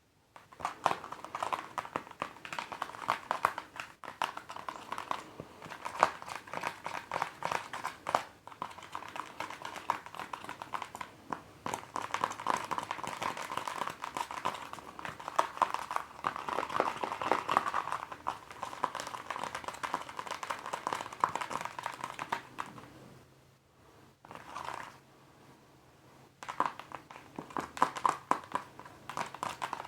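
Rapid tapping on a mask: a dense run of quick clicks that stops for a few seconds about two thirds of the way through, with one short burst in the gap, then starts again near the end.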